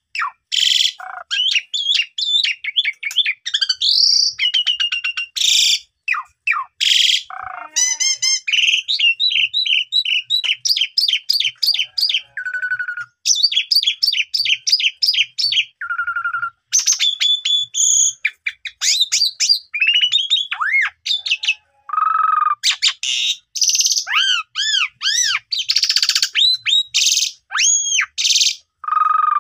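Asian pied starling (jalak suren) singing a long, varied song almost without pause: quick chirps, whistles that slide up and down, fast rattling trills and harsh rasping notes. It runs through its repertoire of imitated phrases.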